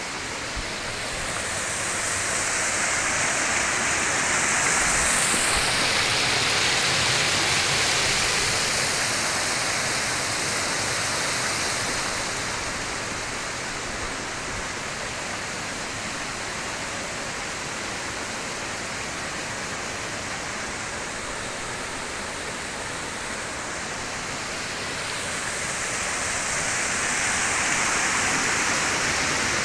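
The Kibune River, a mountain stream, flowing in a steady rush of water, swelling louder a couple of seconds in and again near the end.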